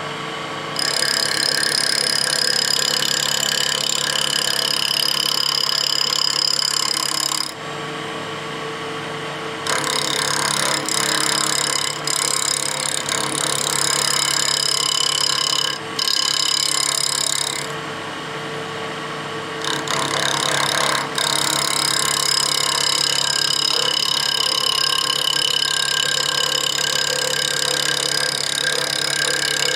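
Wood lathe running while a gouge makes light cuts on a wooden letter-opener blank mounted off its centre axis. The cutting starts about a second in and stops briefly twice, around 8 and 18 seconds in, leaving only the lathe's running hum.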